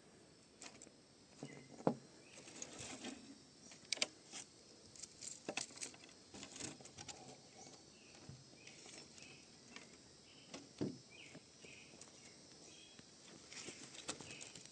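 Irregular crackles and snaps of dry wood and twigs, a few sharper snaps standing out, with faint bird chirps behind.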